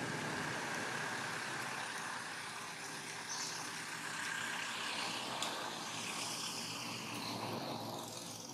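Steady outdoor rushing noise with a low hum underneath, easing off near the end.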